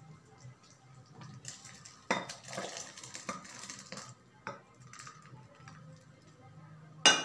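Thick gravy poured from a metal pan into a glass bowl, the pan clinking against the bowl, followed by a spoon scraping out the rest with a few clinks and a sharp knock near the end.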